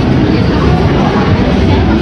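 Loud amplified music playing amid crowd voices, with a steady heavy bass.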